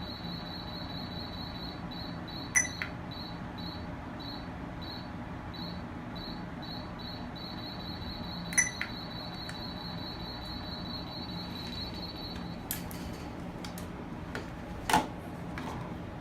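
A steady, pulsing high-pitched electronic whine over a low hum, stopping about two-thirds of the way through. Two short sharp clicks come about six seconds apart, and a few more clicks follow near the end, the loudest just before it ends.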